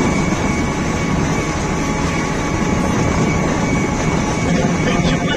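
Self-propelled combine harvester driving along a road, its engine and machinery running steadily, heard from on top of the machine.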